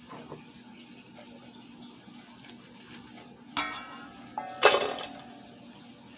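Stainless steel mixing bowl knocked twice, about a second apart, ringing briefly each time as chopped romaine lettuce is tipped into it.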